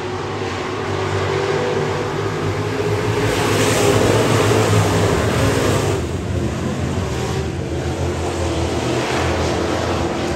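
Street stock race cars running at speed around a dirt oval. The engine sound swells to its loudest about four seconds in as the cars come by, then eases off a little.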